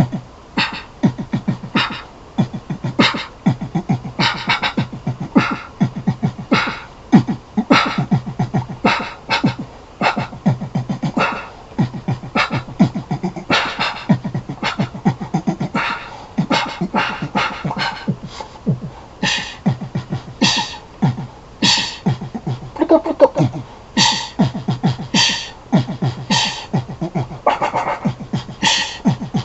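A person's voice making rhythmic wordless vocal sounds in short, quick bursts, much like beatboxing.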